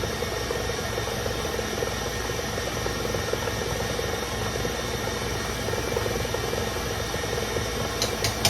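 Electric mixer running steadily, whipping eggs and sugar for a sponge cake batter. A few short sharp clicks near the end.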